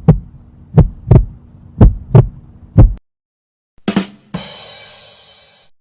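Heartbeat sound effect: deep double thumps, lub-dub, about once a second, stopping abruptly about three seconds in. Near the end a short hit is followed by a bright ringing tone that fades away.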